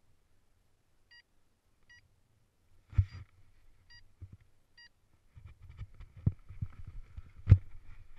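Paragliding variometer giving short electronic beeps about once a second, with a loud knock about three seconds in. From about halfway, wind on the helmet camera's microphone and the rustle and thumps of the paraglider being pulled up overhead take over, with a hard thump near the end.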